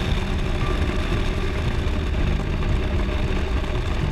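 Motorcycle riding at road speed: the engine runs steadily under heavy wind rush on the microphone. The engine's hum comes through more clearly from about two seconds in.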